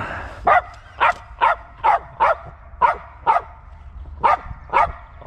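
Dog barking repeatedly, about two short barks a second.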